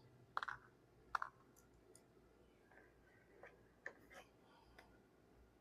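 A few faint, scattered clicks and taps of plastic parts being handled and pushed into place on a car's center console lid latch. The two strongest come in the first second and a half.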